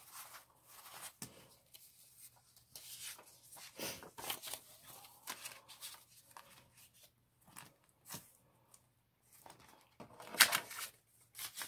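Paper banknotes rustling and flicking as they are handled and counted, with crinkling of a clear plastic zipper pouch in a ring binder as it is opened. The loudest, short sharp rustle comes about ten seconds in.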